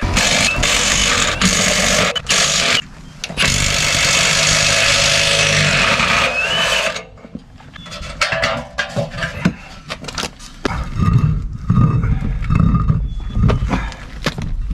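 Ryobi half-inch cordless impact wrench hammering the lug nuts off a bus's front wheel, in loud runs over the first seven seconds with short breaks near two and three seconds in. After that come quieter clicks, knocks and scrapes as the loosened wheel is handled.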